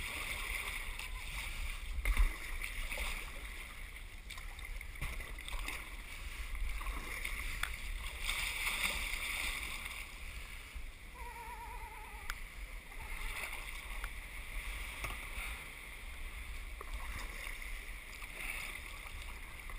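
Water lapping and splashing around a kayak hull as it is paddled, with a few sharp knocks of the paddle against the boat, the loudest about two seconds in.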